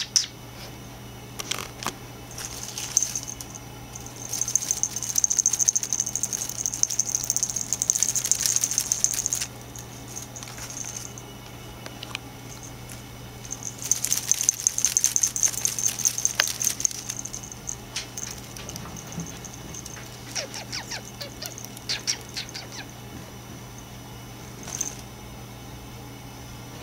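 Scottish Fold kitten scrabbling and scratching at a woven basket, in crackly rustling bursts with scattered clicks, loudest for several seconds twice. A steady low hum runs underneath.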